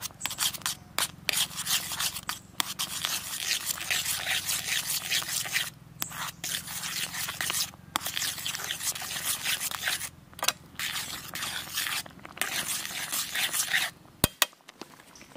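A metal spatula scraping and stirring vegetable soup in a metal pan, in stretches of a second or two broken by short pauses. It ends with a couple of sharp clicks near the end.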